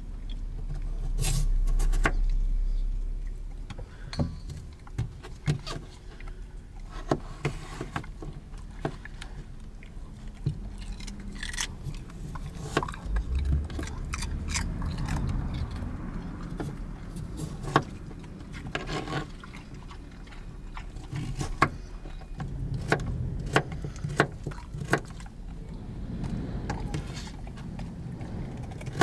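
Irregular clicks, knocks and light clatter of small things being handled, over a low rumble that swells in the first few seconds.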